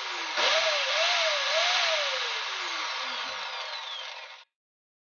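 Bosch chop saw's electric motor with its armature commutator just repaired, running normally. It is pulsed on and off so its whine climbs and dips three times, then it winds down steadily, with the sound cutting off suddenly a little past four seconds in.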